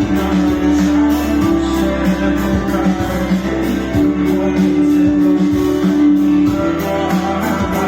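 Music with guitar and a strong bass line, an instrumental passage of a Hindi pop song without vocals, played over Bluetooth through a Zebronics Jukebar 8700 Pro soundbar and its wireless subwoofer.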